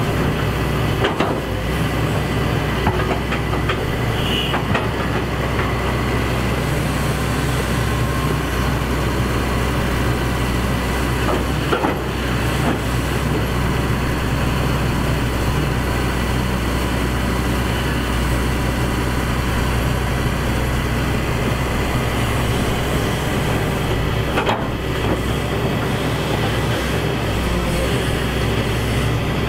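Hydraulic excavator's diesel engine running steadily under load, with a few sharp knocks from the machine at work.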